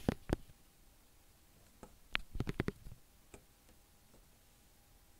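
A few short, sharp clicks and knocks: a handful right at the start and another cluster about two seconds in, with quiet in between.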